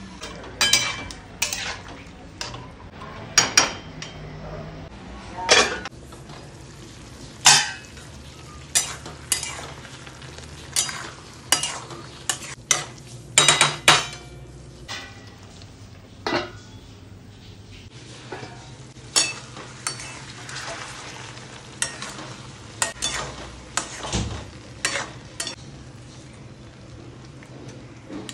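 Metal spatula scraping and clinking against a metal kadai as a potato and aubergine curry is stirred, in irregular strokes every second or two, over a steady low sizzle of the curry frying.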